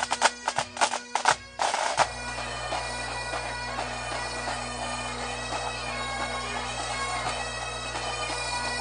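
Bagpipes playing, with the steady drones sounding under a chanter melody from about two seconds in. Before that comes a quick run of sharp hits.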